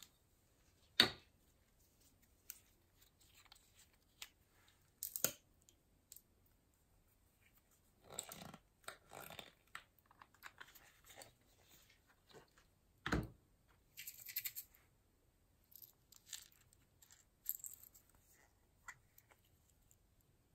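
Scattered light clicks and taps of small plastic pots and decorations handled over a glass bowl, with a short scratchy rustle about eight seconds in and a single louder knock about thirteen seconds in.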